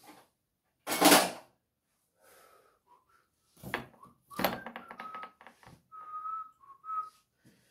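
Objects being handled and knocked about close to the microphone: a loud clatter about a second in, a quick run of rattling clicks around four to five seconds in, then a few short, high, steady notes.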